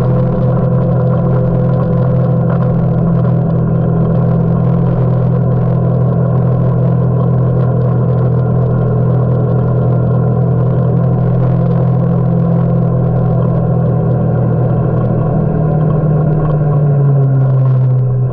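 Kawasaki Teryx4 UTV's V-twin engine running steadily under way, its drone dropping slightly in pitch near the end as it eases off.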